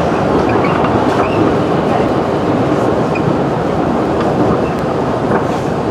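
Running noise inside a JR 211 series electric train at speed: a steady rumble of wheels on the rails.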